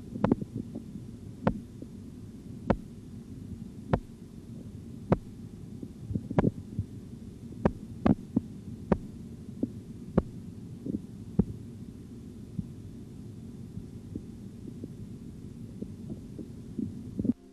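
Korotkoff sounds heard through a stethoscope while the blood-pressure cuff deflates: sharp regular taps about one every 1.25 seconds over a low steady rumble. The taps fade away after about twelve seconds as the falling cuff pressure nears the diastolic level.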